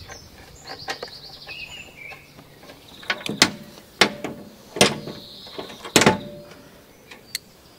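Spark plug and tools being handled while the plug goes back into a Briggs & Stratton 450 series lawnmower engine: about four sharp clicks and knocks in the second half, the loudest near the end.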